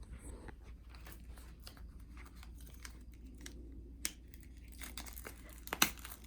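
Wrapping being torn and pulled off an Apple Watch Series 4 box by hand, a run of small crinkles and tearing crackles with a sharper snap about four seconds in and another near the end.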